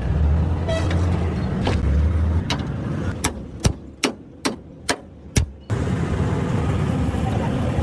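Low, steady rumble of a running vehicle engine with road noise. About three seconds in it drops away to a quieter stretch with about six sharp knocks or clicks, then the rumble returns near the end.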